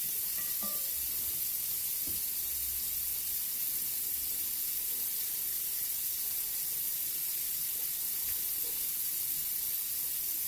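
Steady sizzling hiss of chicken gizzards and onions cooking in a pot, with a few faint knocks of handling now and then.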